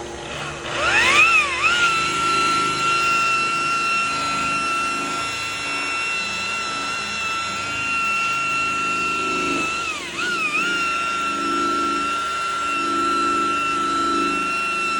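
Electric palm sander spinning up about a second in, then running with a steady high whine while sanding a headlight lens. Its pitch dips briefly and recovers about ten seconds in.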